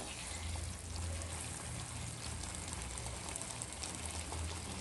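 Mango pickle in sesame oil and vinegar simmering in a pan, a steady faint sizzle and bubbling, with a wooden spatula stirring through it. A low hum runs underneath.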